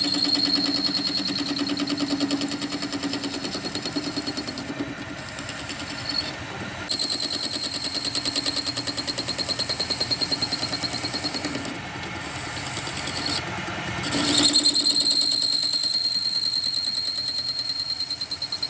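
A metalworking machine running with a fast pulsing beat and a steady high-pitched squeal. The squeal eases off twice, around five and twelve seconds in, and comes back strongest near the end.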